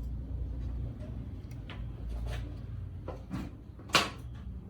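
Hard plastic clicks and knocks from the laptop's case being handled and closed up, then one sharp snap about four seconds in, over a steady low hum.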